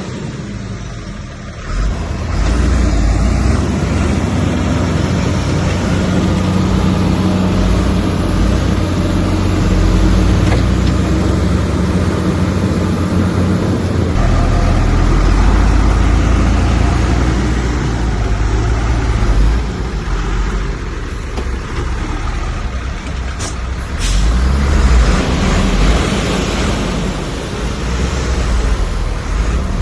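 Heavy diesel engine of earthmoving machinery running steadily and loudly, growing louder about two seconds in. A few short, sharp sounds come near the end.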